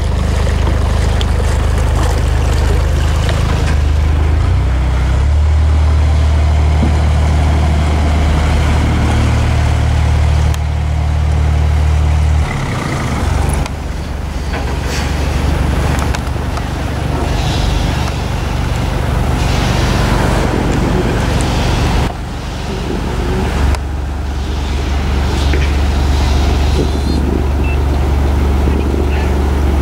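Narrowboat's diesel engine running at low revs, a steady low throb whose note and strength shift about twelve seconds in and again about twenty-four seconds in.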